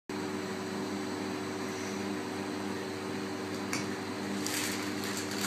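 Steady hum of a running chocolate tempering machine, with a few short rustling scrapes near the end as a piping bag is filled with milk chocolate.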